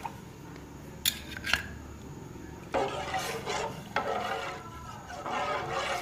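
A black ladle stirring and scraping thick green curry around a metal pot, with two light knocks against the pot a little after one second in, then repeated rasping scrapes along the bottom and sides. The curry is being stirred constantly so the rice thickening does not stick to the pot.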